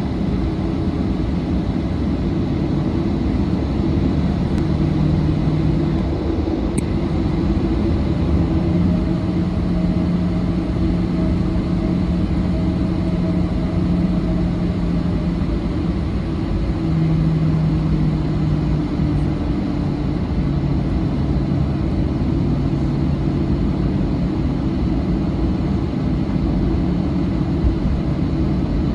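Cabin noise of a Boeing 737-700 taxiing, its CFM56-7B turbofan engines running at low taxi power. A steady low rumble, with low hums that shift in pitch now and then.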